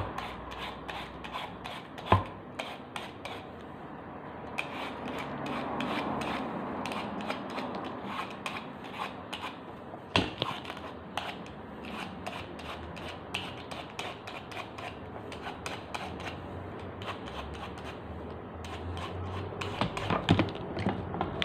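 Handheld vegetable peeler scraping the skin off a kalabasa squash in quick repeated strokes, with a couple of sharper knocks along the way.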